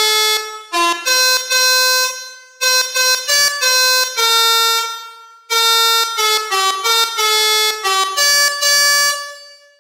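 Melodica (pianika) playing a telolet bus-horn tune: three short phrases of quick reedy notes, each ending on a held note that fades away.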